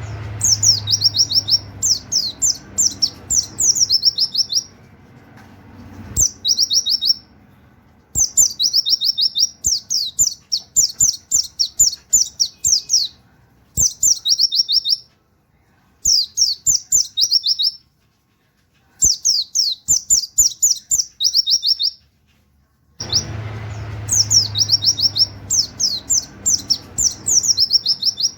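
Pleci (white-eye) singing rapid-fire 'wit wit' phrases: bursts of quick, high notes, each a fast downward sweep, about four a second, broken by pauses of a second or so. A low hum sits under the song near the start and again near the end, with faint scattered clicks.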